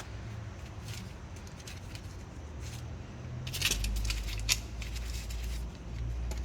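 Small clicks and rattles of hands working the plastic plug of a rear brake pad wear sensor loose, with a cluster of sharper clicks about three and a half to four and a half seconds in.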